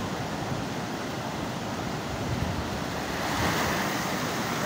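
Debris-laden flash-flood water rushing down a street: a steady rushing noise that grows a little louder about three seconds in.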